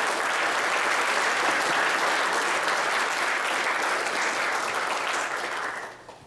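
Audience applauding, a dense patter of many hands clapping that fades out near the end.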